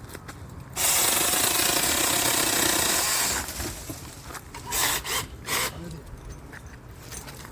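Seesii DL07 brushless cordless mini chainsaw cutting through wood for about two and a half seconds, starting about a second in, then stopping. Two brief loud noises follow a second or two later.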